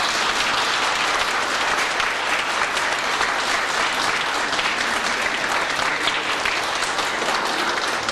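Audience applauding steadily, a dense clatter of many hands clapping together.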